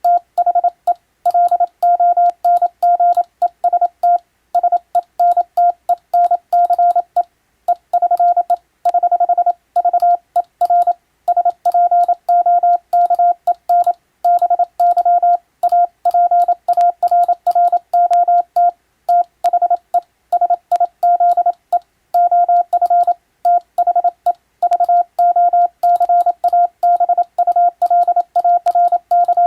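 Morse code sent as a single tone of about 700 Hz, keyed on and off in dots and dashes at a brisk, even speed, with brief pauses between groups. It is a telegram in Western-alphabet Morse being sent as code practice.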